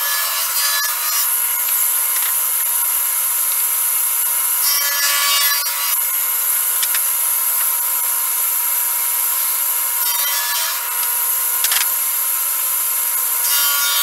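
Table saw running steadily with a constant whine as a painted raised-panel cabinet door is fed along the fence, its blade shaving a thin strip, a 32nd to a 16th of an inch, off the door's edges.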